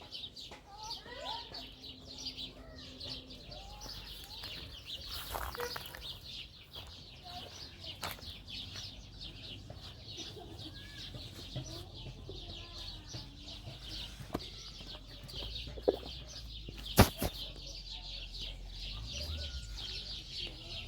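Many birds chirping continuously in a dense high chatter, with scattered lower calls and a few sharp knocks, the loudest about two-thirds of the way through.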